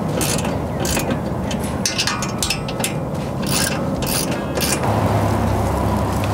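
A ratchet wrench clicking in short bursts as bolts are tightened on a steel mounting bracket, over a steady low rumble.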